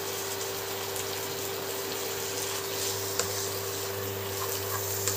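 Mutton keema sizzling gently in a kadai on an induction cooktop, over the cooktop's steady hum. A spatula starts stirring it near the end.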